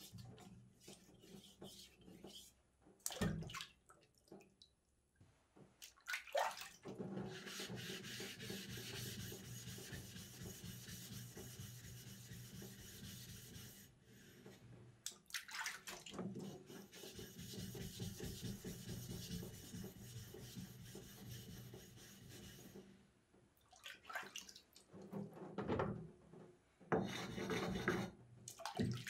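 A wet whetstone being rubbed in steady back-and-forth strokes: two long stretches of scraping with a short pause between, then shorter strokes near the end. A single sharp knock comes a few seconds in.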